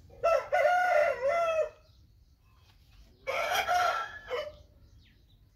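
Rooster crowing twice, each crow lasting about a second and a half, about three seconds apart.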